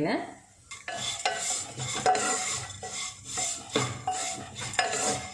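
A spatula stirring and scraping flattened rice (poha) as it fries in ghee in a deep pan, in repeated strokes about two a second.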